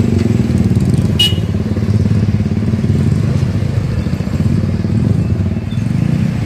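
Heavy truck's diesel engine running close by, a steady low engine note with a rapid beat. A brief sharp metallic click about a second in.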